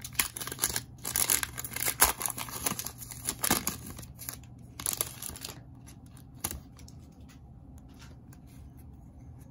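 A Donruss Optic trading-card pack wrapper being torn open and crinkled, in a flurry of rips and crackles over the first five and a half seconds. After that come only a few faint ticks and rustles from the cards being handled.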